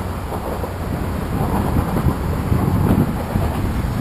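Low rumbling and knocking, muffled inside the handlebar-mounted GoPro's housing, as the bicycle is wheeled down the stairway's wheel channel. It grows louder about a second and a half in.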